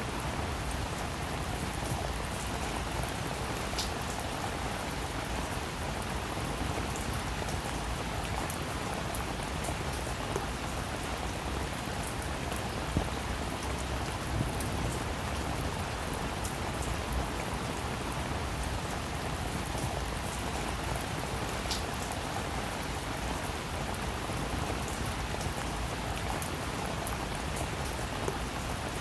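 Steady rainfall, with individual drops pattering on a surface.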